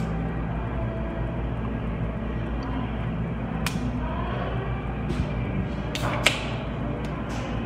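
Aluminium drink can opened by its pull tab: a sharp crack about six seconds in, then a short fizzing hiss as the gas escapes, with a few lighter clicks of the tab before and after, over a steady background hum.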